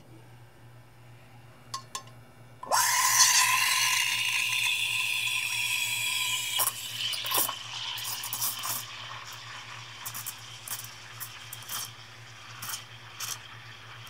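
Rocket Espresso R58 steam wand being purged. The steam valve opens with a sudden loud hiss and whistle that runs about four seconds and then cuts off sharply, blowing condensed water out of the wand before milk is steamed. A fainter hiss and a few light clinks follow.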